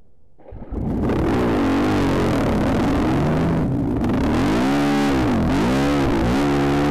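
Dirt bike engines at close range fire up about half a second in, then rev loudly, the pitch rising and falling as the throttle is worked at the start of the race.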